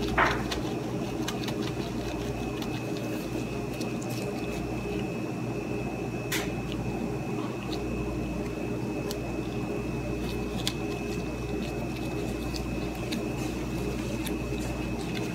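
Steady appliance hum with a thin high whine running through it, under faint crinkles and taps of plastic-gloved hands shaping dough; a short squeak sounds right at the start and another about six seconds in.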